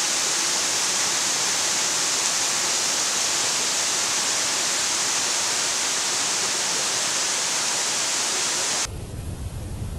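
Waterfall: a steady, hissing rush of falling water. Near the end it cuts off abruptly and gives way to a quieter, lower, uneven rush.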